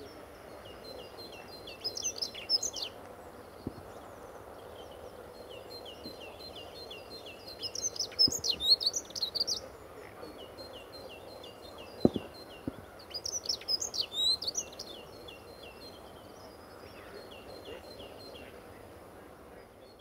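Dunnock song: three short, fast, high warbling phrases, a few seconds apart, with trains of short repeated chirps in between. A single sharp tap about twelve seconds in.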